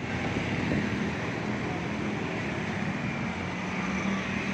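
Steady street traffic noise, with a low engine hum running underneath.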